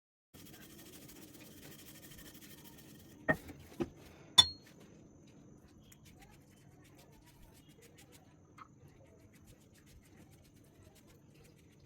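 Kitchen dishware clinking: three sharp clinks about half a second apart a few seconds in, the last one loudest with a brief ring, then a faint tap later, over quiet room tone.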